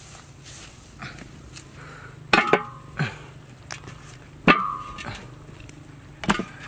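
A ceramic plate in a large metal wok clinking three times as dead piglets are set down on it, each clink a sharp knock with a brief ringing tone.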